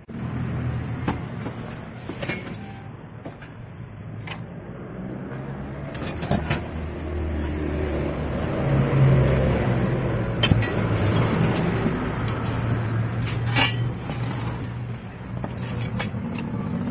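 Clinks and knocks of a mini ATV's steel frame and parts being handled in a cardboard box, over a steady low engine rumble from a vehicle that grows louder in the middle.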